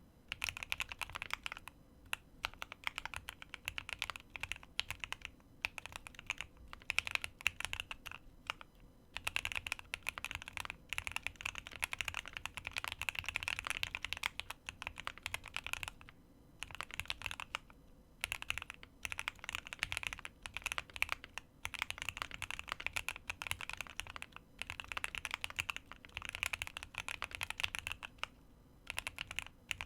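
Typing on a QK75 mechanical keyboard with lubed Gateron North Pole Yellow linear switches, an aluminium plate, full foam and GMK Dandy keycaps: fast runs of keystrokes with short pauses between bursts.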